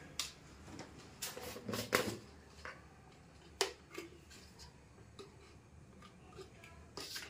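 Irregular light clicks and taps of a plastic powder canister, its snap lid and scoop being handled, with a few louder clicks in the first four seconds.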